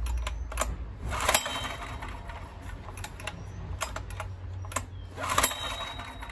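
Recoil starter of a Honda EX1000 suitcase generator pulled twice, about a second in and again about five seconds in, with clicks and rattles from the starter mechanism; the engine does not catch.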